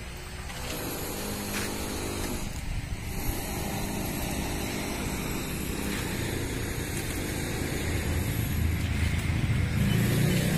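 A motor vehicle's engine running, a steady low rumble that grows louder near the end.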